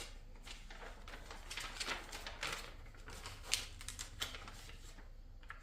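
Paper rustling and crinkling as an instruction manual is unfolded and leafed through: an irregular run of light crackles and taps, the sharpest a little past the middle.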